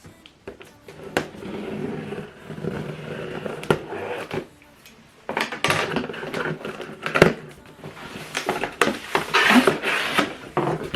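Printer packaging being opened and handled: irregular knocks and clicks with stretches of rustling and scraping.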